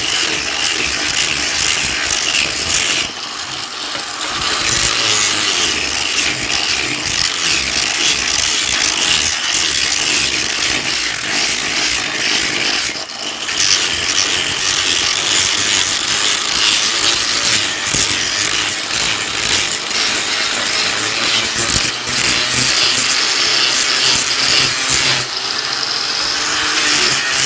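A power tool running steadily under load with a continuous abrasive hiss, working the material of an axe being made. It eases off briefly about three seconds in and again around thirteen seconds, then carries on.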